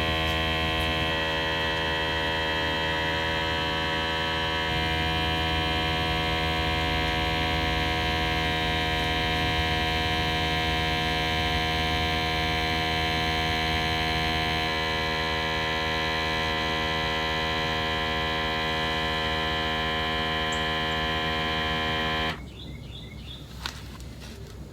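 Battery-operated sprayer pump, adapted as a gear oil transfer pump, running with a steady hum as it pressurises its tank, then cutting off suddenly near the end once it is pressured up.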